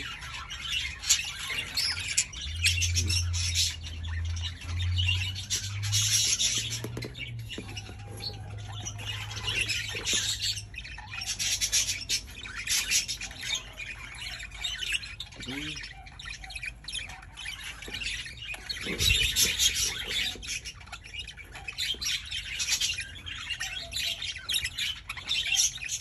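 Budgerigars chattering with rapid, irregular chirps and squawks. A low steady hum sits under them for several seconds in the first half.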